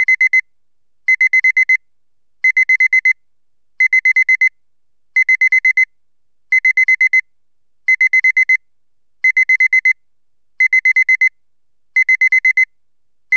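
Digital alarm clock beeping: groups of four or five rapid high-pitched beeps, repeating about every second and a half.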